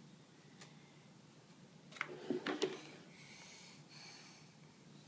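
Quiet room with a few faint clicks and a soft rustle as a child handles puzzle pieces.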